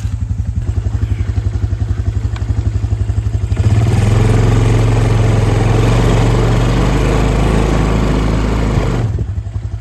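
ATV engine idling, then revving hard under load for about five seconds while hauling the skiff up the beach, its smooth, worn tires losing grip; it drops back to idle near the end.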